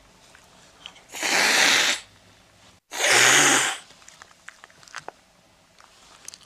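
A cat hissing twice, two loud breathy hisses of just under a second each, about a second apart.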